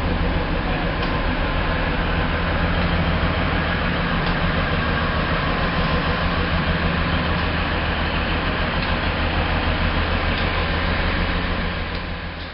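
Diesel engines of a KRD Prambanan Ekspres railcar set idling at a platform, a steady low hum with an even rumble over it, fading out at the very end.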